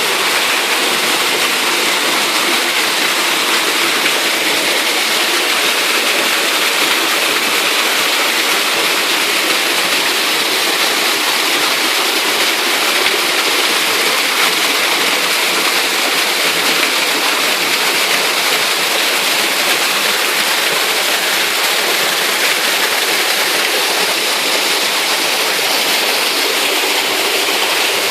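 Waterfall: water pouring and crashing, a loud, steady rush.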